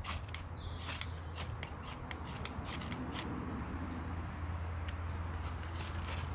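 Ferro rod scraped hard with a striker, a run of quick rasping strikes throwing sparks onto feather-stick tinder, thicker in the first half and fewer toward the end. A steady low hum runs underneath.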